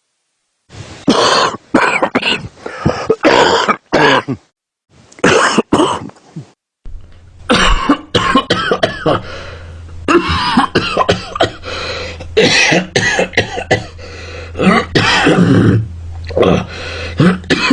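A man coughing very loud, in repeated harsh, irregular bursts of hacking and throat-clearing. A steady low hum joins underneath about seven seconds in.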